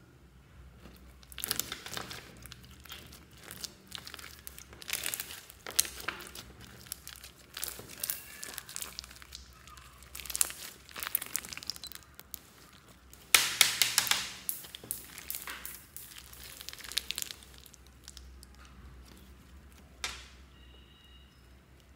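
Shaving-foam slime with mixed-in coloured balls being squeezed, pressed and pulled by hand, giving irregular bursts of sticky clicking and squishing. The loudest burst comes a little past halfway, and there is one sharp click near the end.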